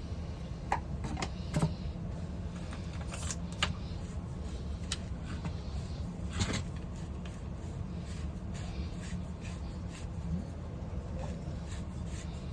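Scattered light clicks and taps of hands handling plumbing fittings, over a steady low hum.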